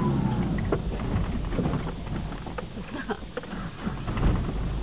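Low engine rumble of a 4WD crawling over a rough dirt track, heard from inside the cabin, with scattered knocks and rattles as it bumps along and a heavier thump about four seconds in.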